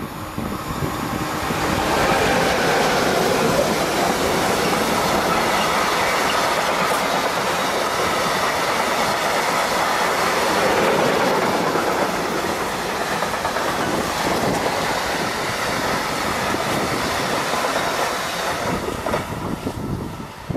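Freight train of stake and tank wagons rolling past on the station's through track: a steady rumble with the clickety-clack of wheels on the rails. It builds up about two seconds in and fades near the end as the last wagons go by.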